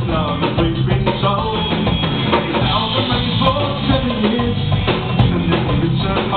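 Live band playing a song: a drum kit keeping a steady beat, with electric guitars and bass guitar.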